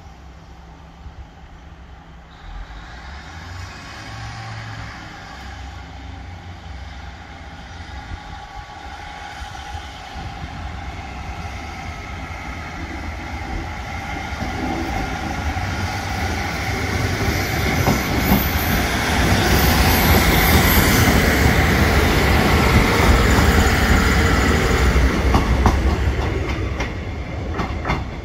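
Class 150 Sprinter two-car diesel multiple unit passing close by: its diesel engine and wheels grow steadily louder, are loudest for several seconds, with wheel clatter over rail joints near the end, then fade as it moves away.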